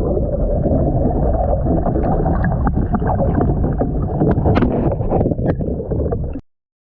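Loud, muffled low rumble on a kayak-mounted camera's microphone, with scattered clicks and knocks. It cuts off suddenly about six and a half seconds in.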